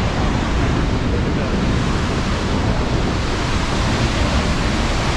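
Steady rushing of Vernal Fall's water, with wind buffeting the microphone.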